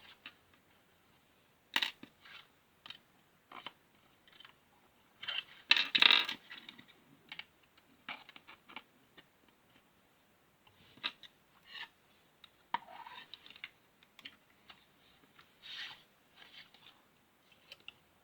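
Small plastic building-block pieces clicking and rattling as they are handled and fitted together, in scattered short clicks with a louder clatter about six seconds in.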